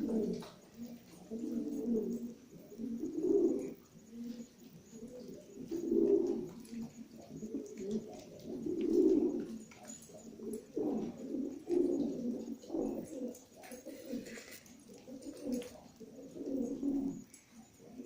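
Makkabi domestic pigeons cooing over and over, a low coo every second or two.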